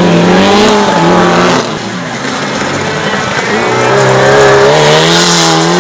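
Mitsubishi Lancer Evolution rally car's turbocharged four-cylinder engine under hard load, with tyre noise. The engine note drops about a second and a half in, then climbs steadily as the car accelerates again.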